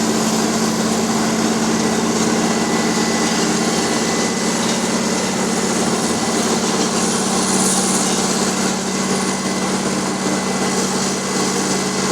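Wirtgen asphalt milling machine running steadily: a steady engine hum under a dense, even noise, with no breaks or changes.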